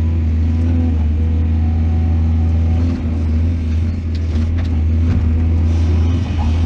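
Heavy diesel engine of earthmoving machinery running steadily under load, with a few faint knocks about two-thirds of the way through.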